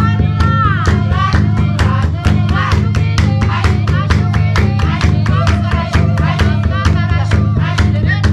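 Music: singing voices over a fast, steady beat with a low bass underneath.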